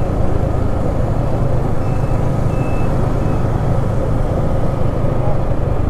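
Yamaha Exciter 155 VVA's single-cylinder engine running steadily on a slow ride, recorded close to the engine.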